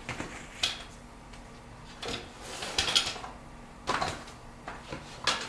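Scattered clicks and knocks of a bicycle pump and inner tube being handled, with a short airy rush a little before the middle.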